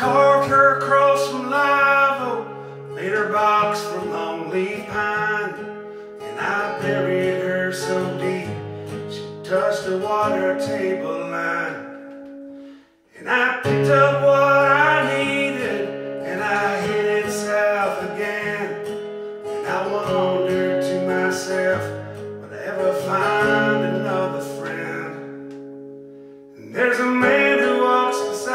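Acoustic guitar played in a slow folk song with a man singing over it. The sound stops briefly about halfway through, then the guitar and voice come back in.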